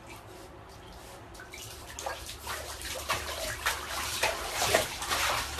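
Water in a bathtub sloshing and splashing around a dog, starting about two seconds in and growing louder in uneven bursts toward the end, over a faint steady low hum.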